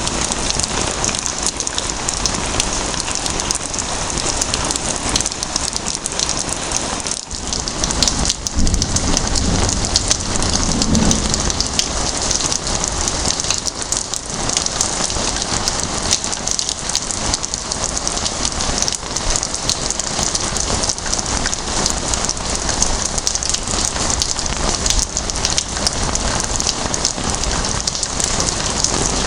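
Heavy rain falling steadily, a dense patter of drops on a surface. About eight seconds in a low rumble rises under the rain for a few seconds.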